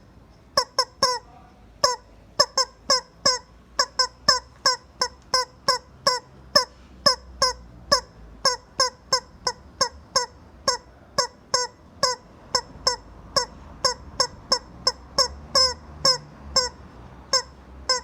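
Rubber chicken squeezed again and again, giving short squeaky squawks at about three a second, some coming in quick pairs.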